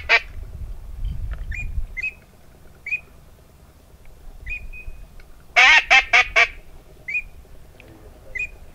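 Haydel's BB-10 double-reed blue-winged teal call being blown to bring a teal back in: short, high peeping notes scattered through, and a loud run of about five quick notes just past the middle. A low rumble of wind on the microphone in the first two seconds.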